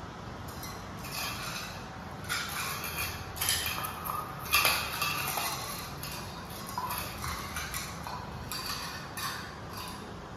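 Rottweiler puppies at steel food bowls on a tiled floor: irregular clinks and knocks of the metal bowls as they eat and nudge them, with small ticks of claws on the tiles; the loudest knock comes about four and a half seconds in.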